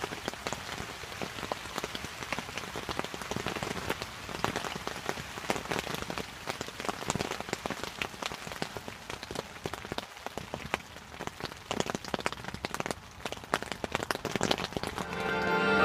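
Steady rain pattering on a shelter's fabric canopy and the surrounding leaves, a dense scatter of individual drop hits, some louder than others.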